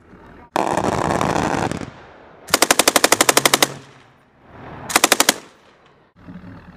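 MK-48 7.62 mm machine gun fired at close range in two bursts: about a second of rapid shots, then a short burst of about six rounds a second and a half later. Before them comes a loud, continuous noise of about a second with no separate shots in it.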